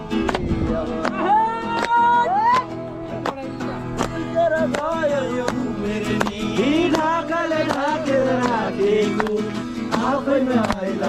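Music playing: a song with a singing voice over a steady beat.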